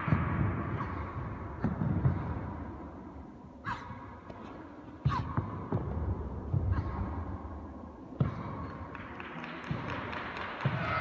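Bare feet stepping and stamping on foam mats and karate uniforms snapping as three girls perform the kata Heian Shodan together: several sharp, irregular thuds a second or so apart over a low murmur.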